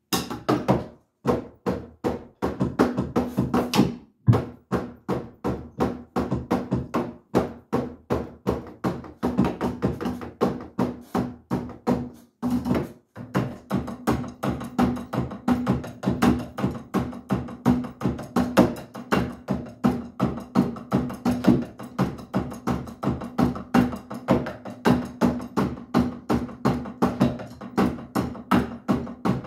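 Electronic drum kit played with sticks: a fast, steady run of hits on the pads and cymbal pads, with short breaks about a second in, about four seconds in, and again around twelve seconds.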